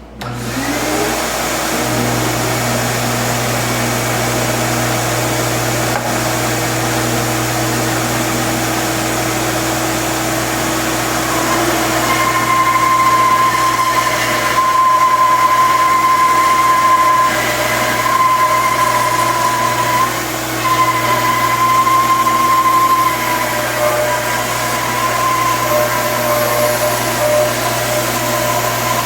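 Bandsaw switching on and spinning up to speed, then running steadily. About twelve seconds in it gets louder, with a whine that comes and goes, as the blade resaws a wooden board.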